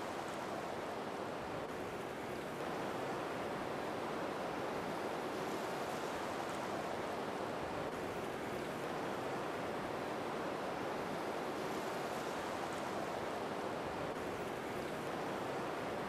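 A steady, even rushing noise with no rise and fall and no bird calls.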